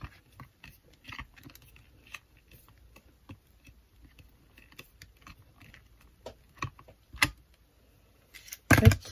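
Hands handling a clear acrylic stamping block on a stamping platform: scattered small clicks and taps of plastic on plastic, with a louder cluster of knocks about a second before the end.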